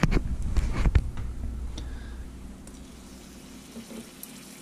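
A few sharp knocks and clicks of handling in about the first second, then a low steady hum.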